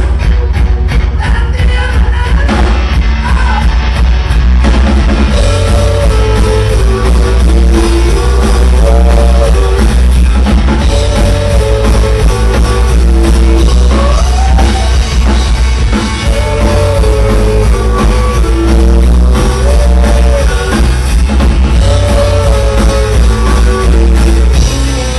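Rock band playing live at loud volume: heavy bass and drums, with a repeating melody coming in over them about five seconds in.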